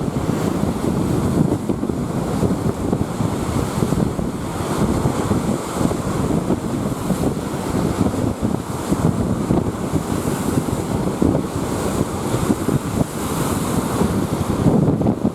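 Strong, gusty wind buffeting the microphone, over rough lake waves.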